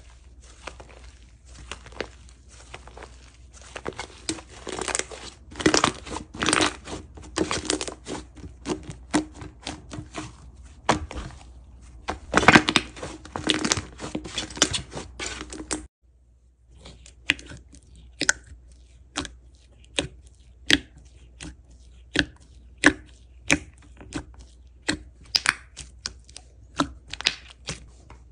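Thick slime squished, stretched and pressed by hand: dense crackling squelches and small air pops. About halfway through, after a cut, it gives way to separate sharp pops, about two a second, as a white slime is worked.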